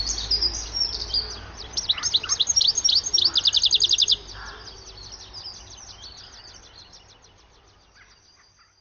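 European goldfinch singing: a fast, twittering song of rapid high notes and trills. It is loud for about the first four seconds, then grows fainter and fades out near the end.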